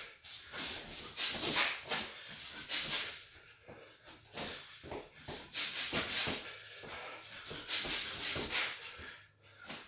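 A boxer's sharp hissing exhalations through the teeth as he throws punches while shadowboxing, coming in quick clusters of short bursts with pauses between combinations.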